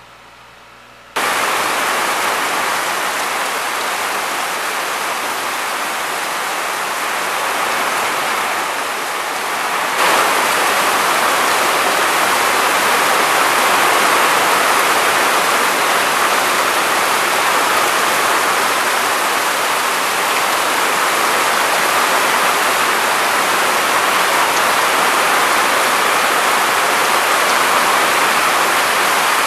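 Steady rushing water, an even hiss that starts suddenly about a second in and gets a little louder at about ten seconds.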